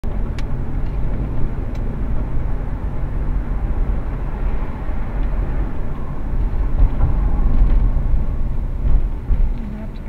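Steady low rumble of tyre and engine noise inside a moving car's cabin, easing off near the end as the car slows.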